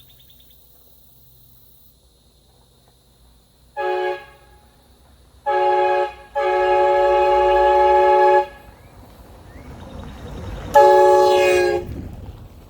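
Aftermarket VEVOR 150 dB air train horns sounding four blasts: a short one about four seconds in, a second short one, a long blast of about two seconds, then a last one of about a second near the end. Each is a steady, unwavering horn tone.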